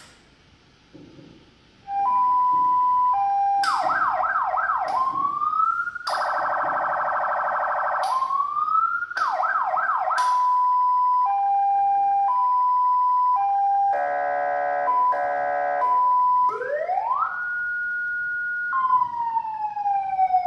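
Electronic emergency siren from a lightbar's control box being switched through its tones. About two seconds in it starts a hi-lo two-tone, then a fast yelp, a rising sweep, a harsh steady horn tone, more yelp and hi-lo, a second horn blast, and a wail that rises, holds, and begins winding down near the end.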